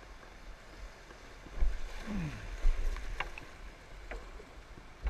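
Whitewater kayak hull knocking twice on rocks in a shallow rapid, about one and a half and two and a half seconds in, with a short falling-pitched scrape between the knocks. Rushing water runs underneath throughout, and there are a few sharp clicks of paddle or splash near the end.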